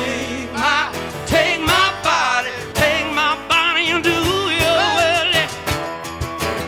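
Live rock band playing: a male lead vocal with heavy vibrato over guitars, drums and tambourine. The vocal line ends about five and a half seconds in while the band plays on.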